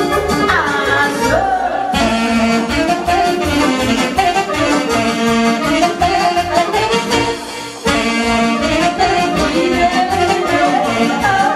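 Live band playing Romanian party music, a saxophone carrying the melody over a steady beat, with a brief drop in loudness a little past halfway.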